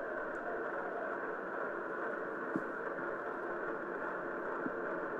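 Steady, muffled stadium crowd murmur from a shot put competition broadcast, with two faint clicks.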